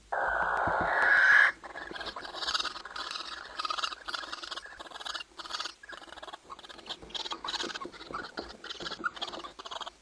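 Barn owls calling: a loud, harsh screech for about a second and a half, then a rapid string of short rasping squeals and chitters, the calls of a pair mating.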